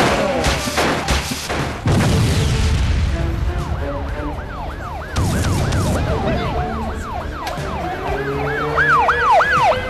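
Fire engine siren sweeping up and down about three times a second, growing louder toward the end as the engine approaches, over background music. A few sharp knocks sound in the first two seconds.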